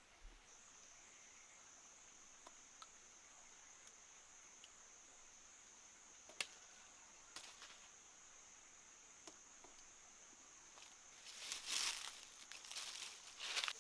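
A faint, steady, high-pitched insect drone with a few sharp clicks. Near the end comes a louder run of rustling and crinkling.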